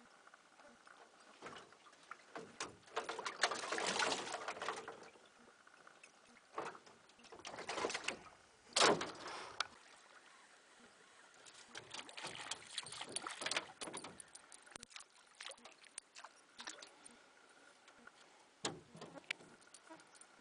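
Rowing a small inflatable boat: slow oar strokes splashing and rubbing against the hull, three of them about four to five seconds apart, with scattered light knocks between.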